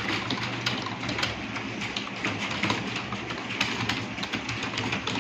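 Computer keyboard typing: a rapid, irregular run of key clicks over a steady low hum.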